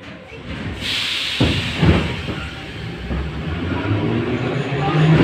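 Inside an 81-541 metro car pulling away from a station: a sudden hiss of air about a second in, then a jolt and a loud low rumble of wheels and running gear as the train starts to move. Toward the end a motor hum climbs steadily in pitch as the train speeds up.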